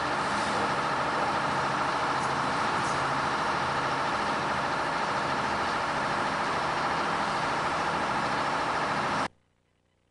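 A heavy engine running steadily with an even drone, cutting off suddenly about nine seconds in.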